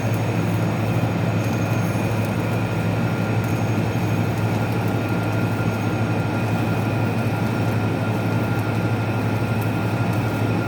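Electric arc welding in progress: the arc crackles and sizzles steadily as a bead is laid slowly, over a steady low electrical hum.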